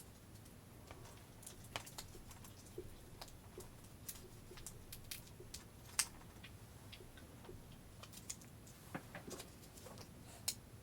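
Scattered light clicks and taps of hands working on a laptop's screen assembly, irregular, with one sharper click about six seconds in.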